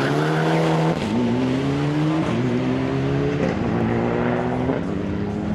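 Rally car accelerating hard away from a corner. The engine note climbs in each gear and drops at four quick upshifts, about one every second.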